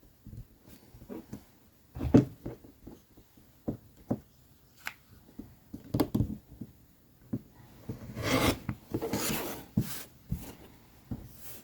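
Handling sounds on a work table: scattered knocks and taps, with a stretch of rubbing and scraping about eight seconds in, as sewing tools and fabric are moved about.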